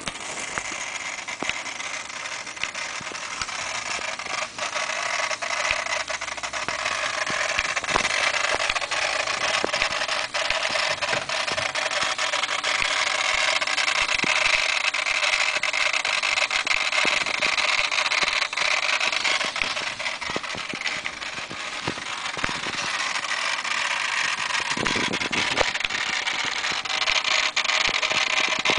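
Strange steady hissing noise, with scattered clicks, from a 1992 Mitsubishi 3000GT VR-4 before its engine is started. The fault behind it is leaked capacitors in the engine computer (ECU): the noise went away once they were replaced.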